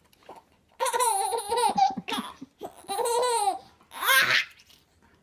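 Baby laughing in several short bouts with pauses between, the last one rising into a high squeal about four seconds in.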